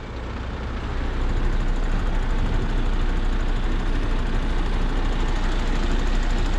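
Swap-body truck's diesel engine pulling away slowly, its level rising over the first second or so and then running steadily.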